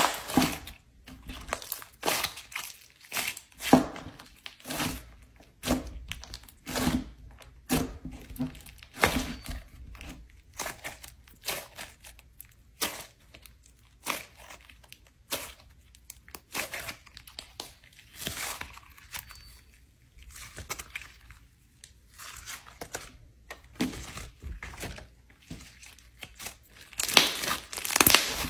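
Hands squeezing and kneading a ball of green slime, making irregular short squishing noises, several a second at times, with the loudest ones near the end.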